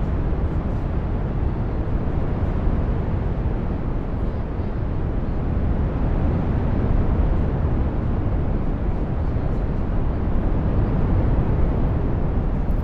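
Synthetic 'living' brown noise: a deep, even rumbling hiss, heaviest in the bass, whose level drifts slightly up and down.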